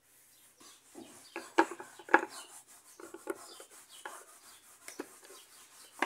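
Hands handling a washing-machine ball bearing and its plastic housing: irregular rubbing and scraping with a few sharp clicks, the loudest about a second and a half to two seconds in, as the bearing is pushed into the housing by hand.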